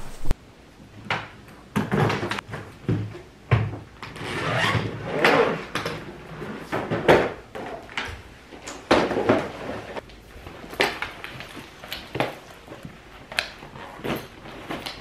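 Packing a suitcase: clothes being handled and laid into an open hard-shell case, with fabric rustling and scattered irregular knocks and thumps.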